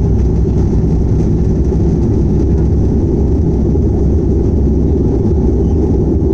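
Bombardier Q400's Pratt & Whitney PW150A turboprop engines and propellers running as the airliner rolls on the runway after landing, heard from inside the cabin as a loud, steady low hum.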